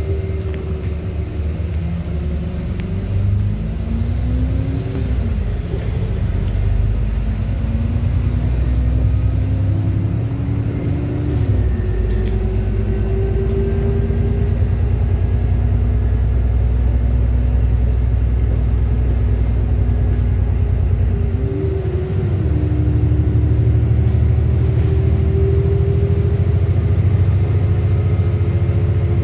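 Inside an ADL Enviro400 MMC double-decker bus on the move: steady engine and driveline rumble. The engine note climbs as the bus pulls and drops sharply at gear changes, about five and eleven seconds in and again about two-thirds of the way through.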